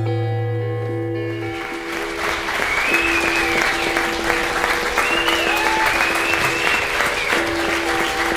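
The last chord of a live song ringing out and stopping about a second and a half in, then the audience applauding, with a high whistle from the crowd rising and falling several times. Quieter sustained instrument notes carry on under the applause.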